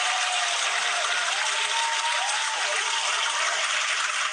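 Canned crowd applause with some cheering, played as a recorded sound effect at a steady, loud level.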